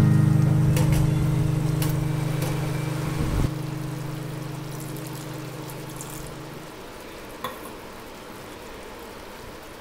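White chicken gravy simmering and bubbling in a pot, a soft sizzling hiss with a few light clicks. A held background music chord fades out about two-thirds of the way through.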